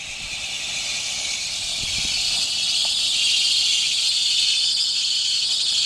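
A steady high-pitched hiss that fades up and grows louder, with no clear rhythm or pitch.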